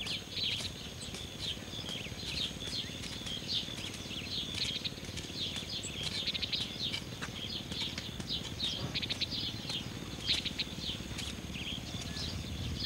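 Many small birds chirping and chattering busily and without pause, over a steady low background noise.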